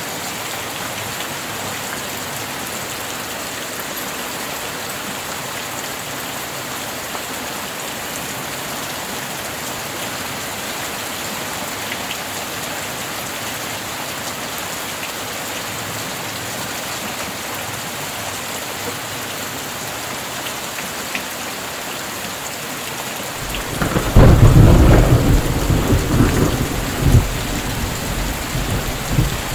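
Steady rain falling, then a loud crack of thunder about three-quarters of the way through that rolls on as a deep rumble in waves to the end.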